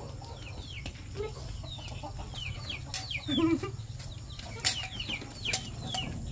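Chickens calling: many short, high calls that fall in pitch, several a second, with a lower call about three seconds in and a few sharp clicks.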